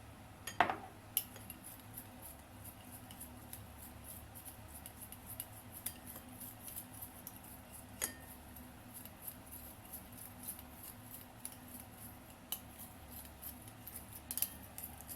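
A spoon and sauce containers clinking and tapping as a dressing is measured out and mixed: a few sharp clinks, the loudest about half a second in, over faint scattered ticks of handling and a steady low hum.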